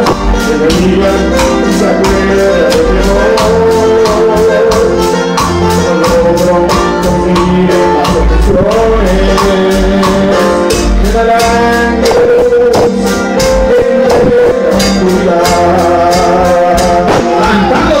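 Loud band music with singing, a steady fast beat of percussion under long held melodic notes.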